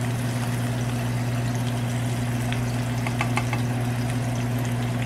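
Chicken thigh frying in hot oil in a pan: a steady sizzle with a few pops and crackles about three seconds in, over a steady low hum.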